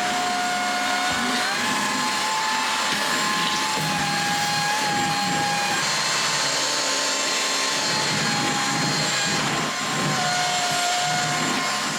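Vacuum cleaner running steadily with a motor whine over the rush of air. The whine steps up in pitch shortly after the start and drops back near the end.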